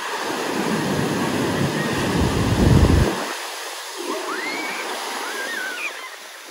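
Ocean surf on the beach: a wave's rush builds to a loud, low-rumbling peak about two to three seconds in, then eases into a softer wash.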